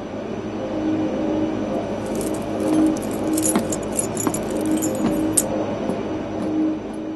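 Background music: a low note repeating in a steady pattern, with a jingling, bell-like shimmer of percussion from about two seconds in until a little past five seconds.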